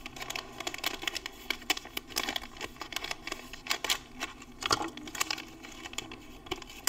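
Thin plastic candy wrapper crinkling as a Korean jelly candy is pulled out of its package by hand, a dense run of crackles that thins out near the end.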